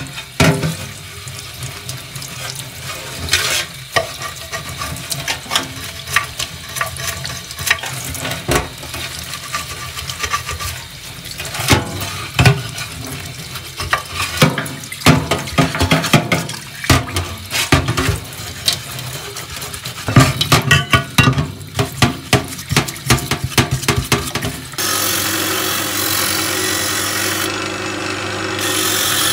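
Cold tap water running into a stainless steel sink as a paint-stripped magnesium chainsaw engine housing is rinsed and scrubbed, with repeated knocks and clatters of the part against the sink. Near the end it changes abruptly to the steady run of a drill press spinning a wire wheel that brushes the magnesium clean.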